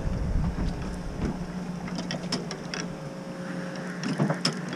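Boat engine idling with a steady low hum, with scattered light clicks and taps from a conventional fishing reel being handled.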